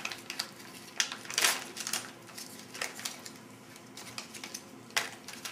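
A plastic MRE wheat snack bread pouch being handled and opened by hand: scattered crinkles and clicks, with a brief louder rustle about a second and a half in.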